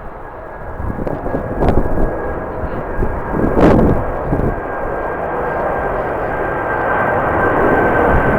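Jet airliner engines with a steady high whine over a rumble, growing gradually louder, while gusts of wind buffet the microphone.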